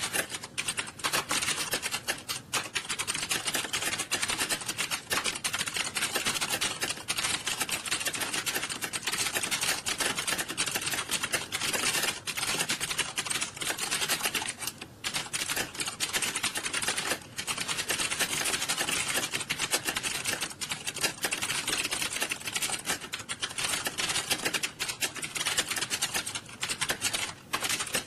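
Many computer keyboards being typed on fast and all at once, a dense, continuous clatter of key clicks that thins briefly a few times.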